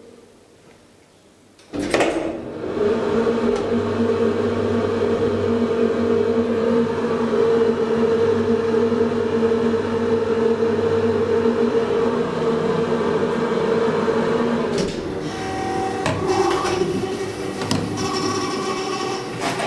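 Schindler hydraulic elevator starting with a click about two seconds in, then its hydraulic pump unit running with a steady hum and whine while the car travels. About 15 seconds in the hum changes as the car slows and levels, and the landing doors slide open with some rattling near the end.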